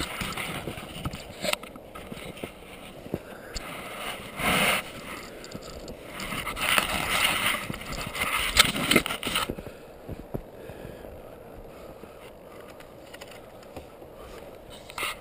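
Handling noise on a small action camera as it is carried: irregular rubbing and scraping with sharp knocks, busiest and loudest between about four and nine and a half seconds, then quieter with a few small clicks.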